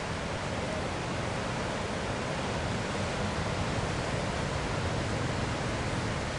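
Ocean surf on the reef, heard as a steady, even rushing noise with no separate wave crashes.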